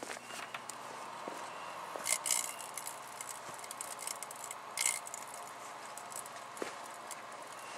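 Microwave oven running with a steady hum, with scattered sharp clicks and crackles from the vintage strobe light inside it. There is a louder cluster of crackles about two seconds in and another near five seconds.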